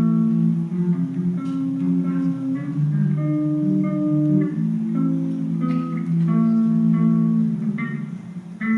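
Guitar playing melodic licks: held notes and chords that change every half second or so. It eases off briefly near the end, then picks up again.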